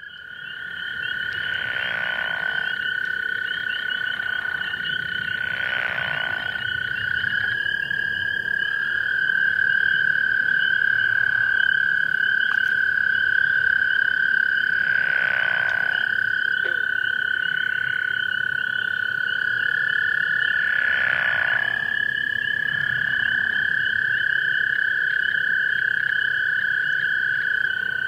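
Pickerel frogs giving short, rattling snore calls, four of them about a second long, over a steady background chorus of long, even trills from other frogs.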